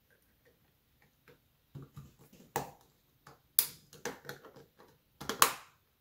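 Small clicks and taps of a Moen kitchen faucet's metal handle sleeve being fitted and pressed back onto the faucet body. The clicks are scattered and start a couple of seconds in, with the sharpest ones about halfway through and near the end.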